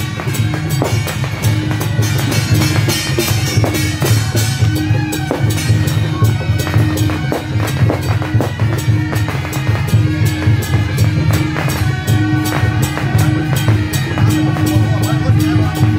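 Loud music with fast, dense drumming and a repeating pitched melody line over it.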